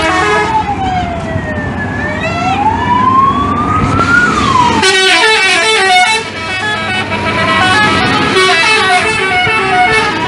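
Indonesian bus's telolet musical air horn sounding at length. It opens with a siren-like wail that falls and then rises, and from about five seconds in it plays a fast run of stepped notes in several tones at once.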